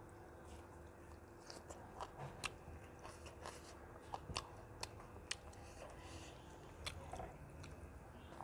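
Chewing and mouth sounds of a person eating rice and curry by hand: soft smacks with scattered sharp clicks.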